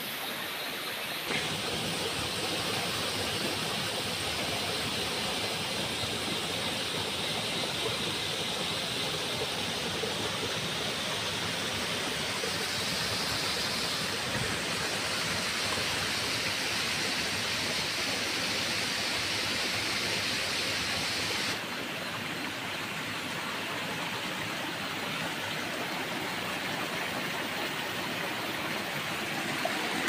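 Steady rush of stream water pouring over rock slabs and boulders at a small waterfall. The rush changes slightly about a second in and again about two-thirds of the way through.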